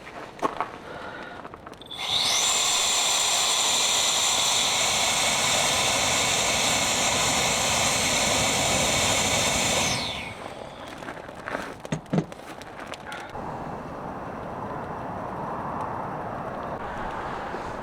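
A small electric motor whining as it spins up, running steadily for about eight seconds, then cutting off abruptly, followed by a few light knocks.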